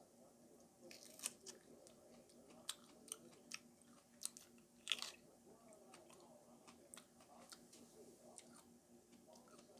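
Someone biting into and chewing a raw Purple Gator Jigsaw chili pepper: faint, irregular crisp crunches, the loudest about five seconds in.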